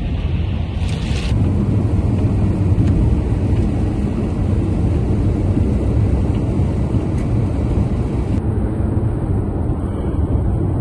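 Car road noise heard from inside the cabin while driving in heavy rain: a steady low rumble of tyres and engine under a hiss of rain. The hiss swells briefly about a second in and drops away near the end.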